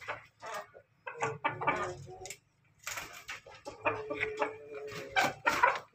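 Ayam ketawa (laughing chicken) rooster crowing in two bouts. The second bout holds one long note, then breaks into short choppy syllables.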